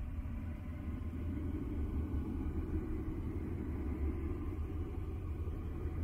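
Steady, deep rumbling noise from an ambient sleep-noise track, low and dark rather than a bright hiss, with faint steady tones held above it.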